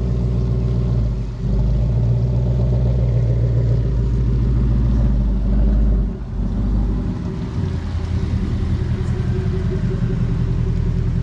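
Ford Mustang 5.0 V8 running through an H-pipe exhaust with a steady low rumble. Its note shifts about a second in and drops lower about six seconds in.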